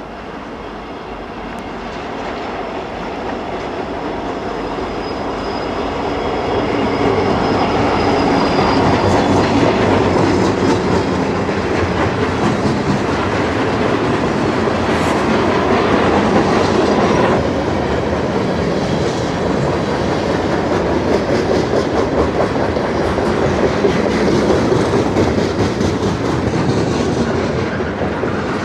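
Canadian National freight train led by two EMD SD60 diesel locomotives passing, with engines running and wheels clicking over rail joints. It grows louder over the first several seconds as the train draws near, then holds a steady rolling clatter.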